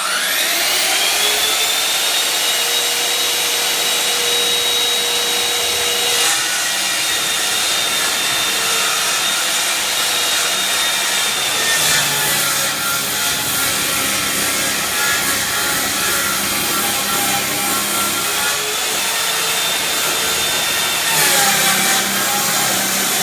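Circular saw spinning up to speed, its pitch rising, then cutting a strip off the bottom of a wooden door with a steady high whine. The pitch shifts a few times during the long cut.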